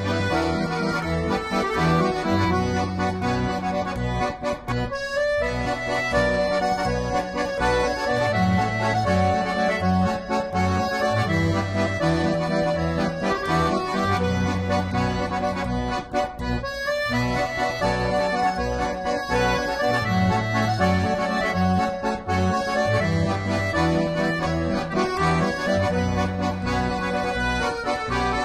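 Instrumental background music: a melody over a repeating bass line, with two brief breaks about five and seventeen seconds in.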